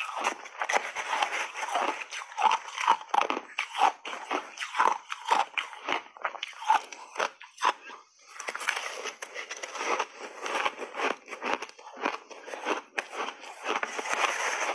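Shaved ice crunching close to the mouth: rapid crisp crunches, a brief lull about eight seconds in, then a big spoonful of matcha-dusted shaved ice bitten and crunched steadily.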